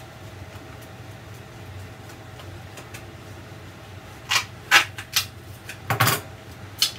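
A handful of sharp taps and crinkles from a foam wall-panel piece being handled and pressed onto the wall, starting a little past halfway, over a low steady hum.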